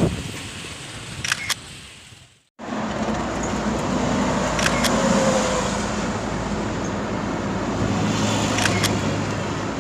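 Motor vehicle running, with steady engine hum and road noise, after a short gap about two and a half seconds in.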